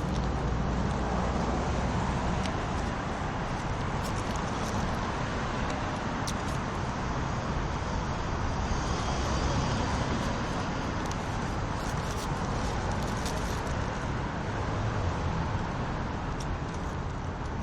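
Steady road and traffic noise: a continuous low rumble of vehicles, with a few faint clicks.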